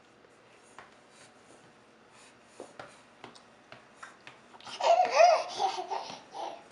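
A toddler's small shoes tapping unevenly on a hardwood floor as she walks, then, about five seconds in, a loud burst of her babbling laughter lasting nearly two seconds.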